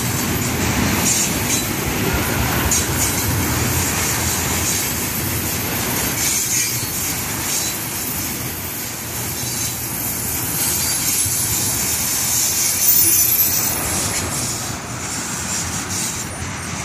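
Loaded freight tank cars rolling steadily past, their wheels clacking over the rail joints, with a thin high wheel squeal at times.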